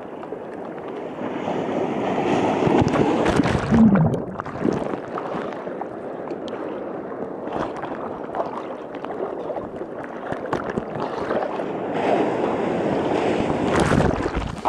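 Ocean surf churning around the microphone, rushing and gurgling. It swells twice, a few seconds in and again near the end, as waves break and wash over.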